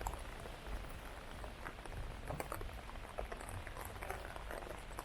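Heavy rain falling, with many small, sharp drop ticks scattered through a steady hiss and a low rumble underneath.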